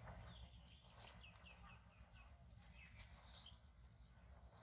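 Faint bird calls: a quick run of about five short chirps about a second in, then a few more scattered calls later, over a steady low background rumble.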